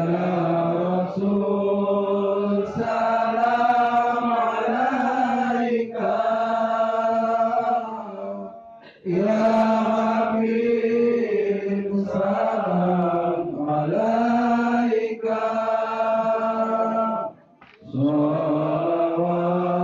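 Male voices chanting Islamic devotional verses in long, held melodic phrases, with short breaks for breath about nine seconds in and again near the end.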